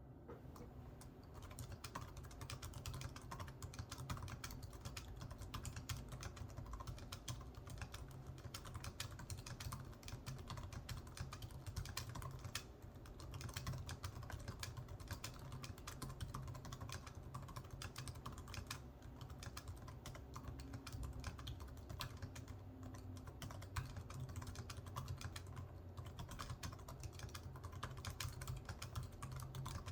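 ThinkPad X220 laptop keyboard, its classic seven-row keyboard, being typed on continuously: a fast, dense stream of key clicks, with a short lull about twelve seconds in.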